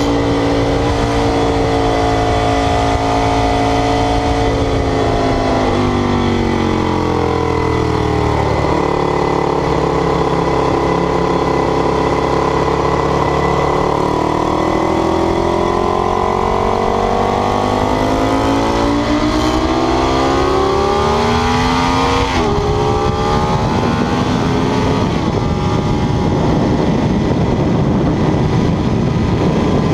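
Ducati 848's L-twin engine under load: its note falls, then climbs steadily for more than ten seconds, drops sharply about twenty-two seconds in and gives way to a steady rushing noise.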